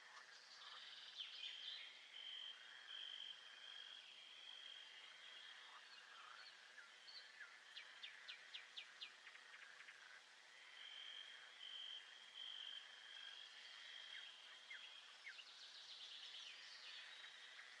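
Faint nature ambience: birds chirping, with a high steady trill that runs for a few seconds twice, and a quick run of chirps about halfway through.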